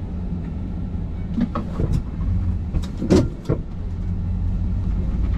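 Steady low rumble of a vehicle being driven, heard from inside the cab, with a few short knocks and rattles in the middle, the loudest about three seconds in.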